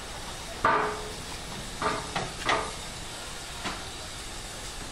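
Steady hiss from a standing steam locomotive, with five short knocks, the loudest about a second in.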